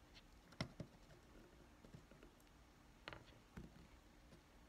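Near silence with a handful of faint clicks and taps from a soldering iron tip and a pick tool touching a wireless receiver pack's circuit board.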